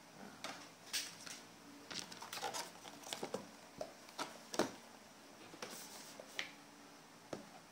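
Cardboard and paper packaging being handled on a wooden table: an irregular string of crisp rustles, taps and scrapes, thickest in the middle and thinning out after about six seconds.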